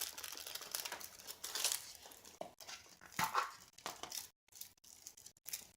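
Irregular crinkling and rustling, with small clicks, from packaging or bags being handled.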